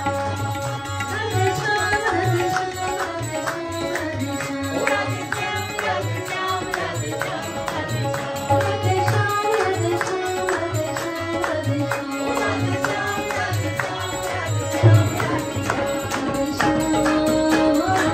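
Live devotional bhajan singing with harmonium accompaniment and a steady percussion beat.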